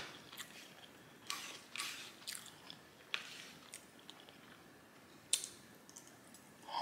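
Close-miked mouth chewing a mouthful of fried rice and Singapore noodles, with irregular lip smacks and short sharp clicks.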